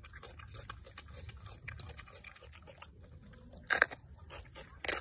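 A macaque chewing a mouthful of raw green bell pepper: many small crisp crunches, with two louder sharp crunches near the end.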